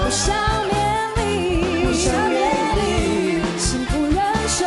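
A woman singing a slow pop ballad into a microphone, her held notes wavering with vibrato, over instrumental accompaniment with a steady drum beat and a few cymbal hits.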